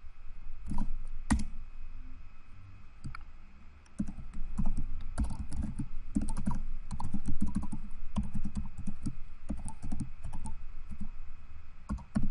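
Typing on a computer keyboard: a few separate keystrokes in the first few seconds, then a steady run of quick keystrokes from about four seconds in.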